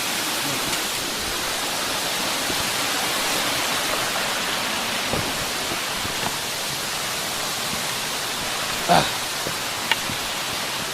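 Steady rush of a mountain stream or small waterfall. A couple of brief knocks or clicks come near the end.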